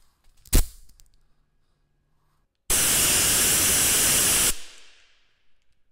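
A sharp click, then a compressed-air blow gun lets out a burst of air: a loud, even hiss lasting about two seconds that cuts off sharply and trails away.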